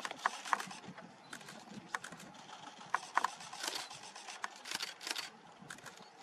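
Sharp, irregular clicks, some coming in quick runs of two or three, over a faint hiss.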